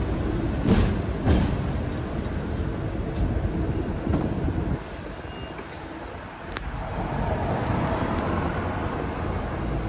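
Hong Kong double-decker tram running along the street: a low rumble with two knocks about a second in. It eases off about five seconds in, then after a sharp click the running noise builds again.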